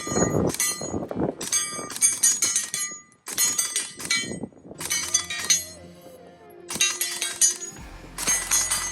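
Background music with bright, glassy chiming percussion in repeated clusters over sustained tones.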